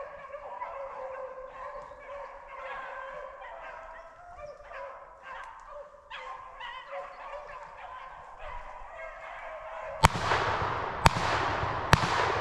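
A pack of rabbit hounds baying on a chase, heard from a distance as steady overlapping calls. About ten seconds in, a loud rushing noise takes over, with three sharp cracks about a second apart.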